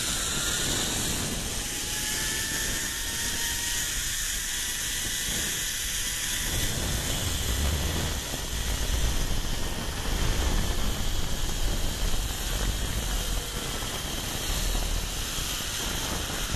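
Zip-line trolley running along the steel cable, a steady whirring hiss with a faint whine that glides in pitch during the first few seconds, under wind rushing over the microphone. About halfway through, the wind buffeting turns into a heavy low rumble as the ride picks up speed.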